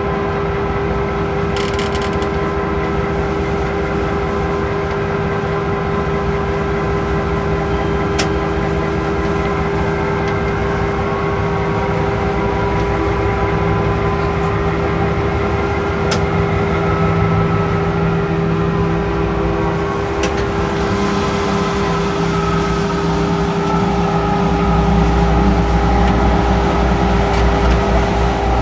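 Running noise inside a diesel locomotive's cab: the engine and rail noise carry on steadily under a constant hum, with a few faint clicks, and the low rumble grows louder near the end.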